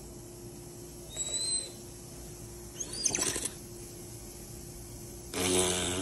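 African grey parrot vocalizing: a short whistle about a second in, a rising squawky call around three seconds, and a louder, longer harsh call near the end. A steady low hum runs underneath.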